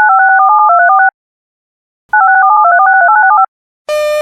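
Two rapid strings of touch-tone (DTMF) beeps, each a second or so long with a short silence between, the paired tones changing about ten times a second. Near the end a buzzy, pulsed tone begins.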